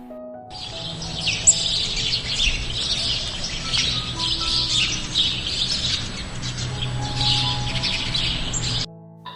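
A dense chorus of many small birds chirping at once, a continuous high twittering that starts about half a second in and cuts off abruptly shortly before the end.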